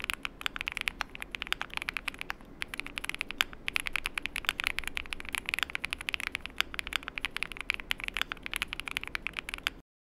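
Typing on a CIDOO V75 PLUS gasket-mount mechanical keyboard: fast, uneven runs of keystroke clacks. The sound cuts off suddenly near the end.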